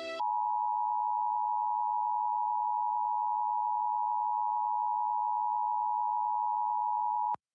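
Emergency Alert System attention signal: two steady tones sounding together, held for about seven seconds and then cutting off sharply. It announces an EAS alert, here the nationwide test.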